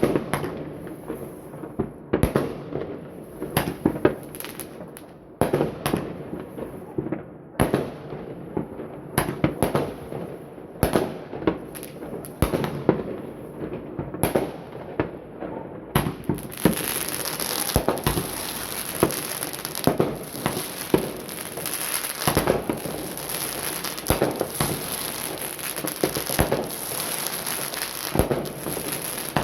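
Many fireworks bursting in an irregular string of bangs, several a second. About halfway through, a dense continuous crackling joins them.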